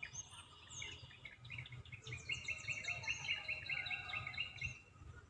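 Several birds chirping and singing, with a quick run of repeated notes, about five a second, through the middle. A low rumble runs underneath.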